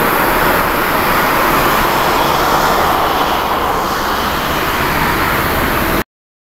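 Jet engines of a Boeing 787 airliner at takeoff thrust as it climbs away: a steady, loud rushing jet noise. It cuts off abruptly near the end.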